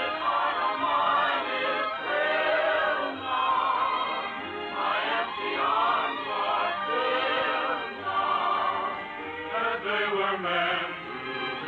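Film-score music with singing voices: long sustained notes sung with vibrato over an orchestral accompaniment, in an operatic, choral style.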